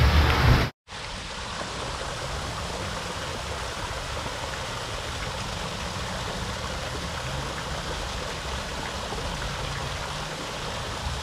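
Water pouring steadily over an artificial rock waterfall and splashing into a pool below. It comes in after a brief louder noise that cuts off suddenly less than a second in.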